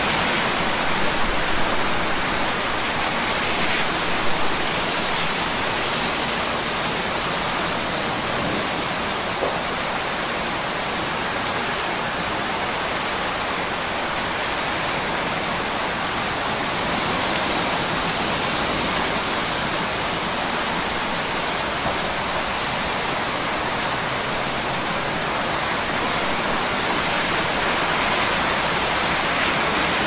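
Steady rain falling in a city, heard as an even, continuous hiss with a few brief louder taps.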